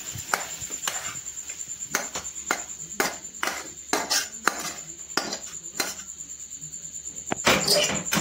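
Metal spatula scraping and knocking against a steel kadai as cooked curry is tipped out into a steel bowl: repeated short scrapes about two a second, with a longer, louder scrape near the end.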